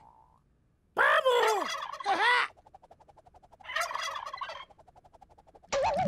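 Turkey gobbling twice: a loud warbling gobble about a second in, then a shorter, quieter one a couple of seconds later. Music starts near the end.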